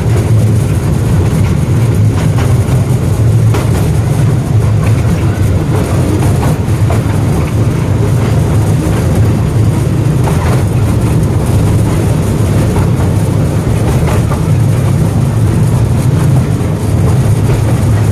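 Miniature toy train running, a steady low rumble with a few faint clicks.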